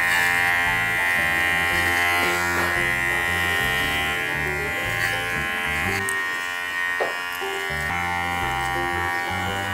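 Electric dog-grooming clippers running with a steady hum as they trim a dog's coat.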